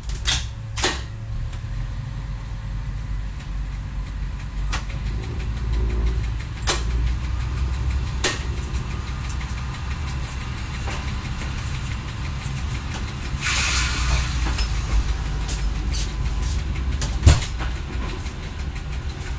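Y1 diesel railcar rolling slowly, heard from the driver's cab: the diesel engine runs with a steady low rumble. Scattered sharp knocks from the wheels on the track come through, the loudest about seventeen seconds in, and there is a brief hiss about two-thirds of the way through.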